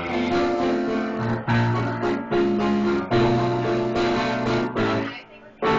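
Piano playing slow, sustained chords as an instrumental passage with no singing, the sound dropping away briefly near the end.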